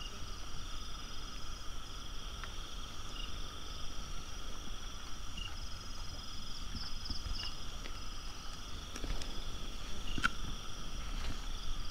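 Night chorus of insects: a steady high-pitched trilling at several pitches at once, with short chirps here and there and a quick run of pulses about halfway through. A few light knocks come near the end.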